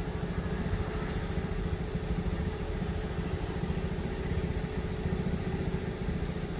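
Machinery running steadily, a low pulsing rumble with a constant hum over it, as fuel is pumped.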